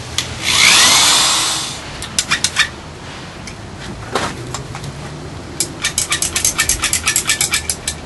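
Cordless drill driving a screw into a plywood frame, a burst of a bit over a second with the motor's pitch bending under load. Then a few sharp clicks and, near the end, a rapid even run of clicks, about nine a second, as a hand tool is worked on the frame.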